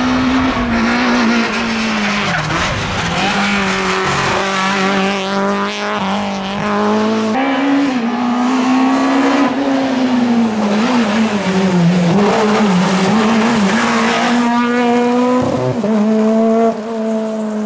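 Rally car engine held at high revs, its pitch wavering and climbing again and again with throttle and gear changes, over tyre noise.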